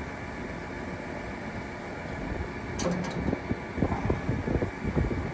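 Tractor engine running steadily, with one sharp metal click about three seconds in as the spreader's lever is worked, and wind buffeting the microphone in the second half.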